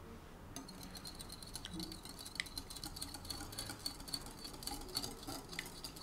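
Wire whisk beating eggs in a glass bowl, the metal clicking and tapping rapidly against the glass from about half a second in, with a thin steady ring.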